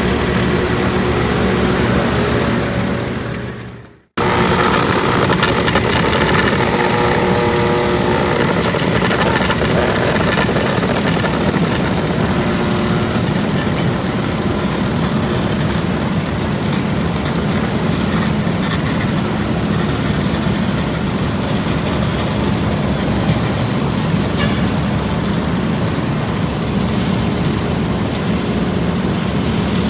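Diesel engines of heavy asphalt-paving machinery (paver and road rollers) running steadily. The sound fades out about four seconds in, then cuts straight back in at the same level.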